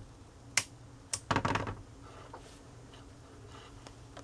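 A few sharp clicks and a short rattle from metal multimeter test probes and their leads being handled and set against the calculator's circuit board, over a faint steady hum.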